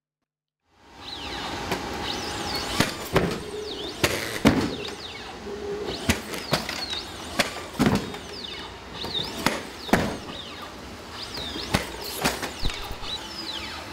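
Atlas humanoid robot doing parkour: its feet land hard on boxes in an irregular run of knocks and thuds, with short squeaks, over a steady mechanical hiss.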